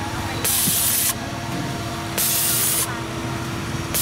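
Repeated bursts of loud hissing, like a spray, each lasting a little over half a second and coming about every second and three-quarters, over a steady hum.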